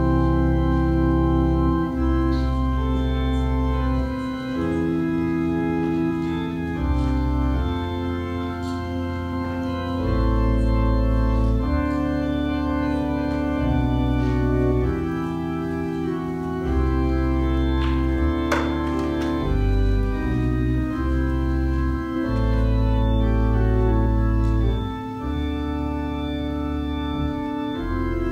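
Organ playing slow, held chords over a deep bass line, the harmony changing every second or two: offertory music during the collection.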